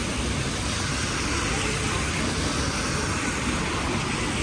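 Steady city street ambience in the rain: an even hiss of rain and traffic on wet roads, with low engine noise underneath and no single event standing out.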